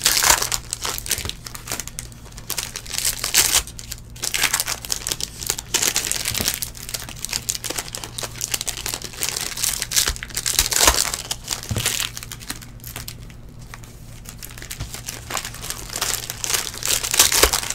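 Foil wrappers of trading-card packs crinkling and tearing as they are ripped open and handled by hand, in irregular bursts of crackle.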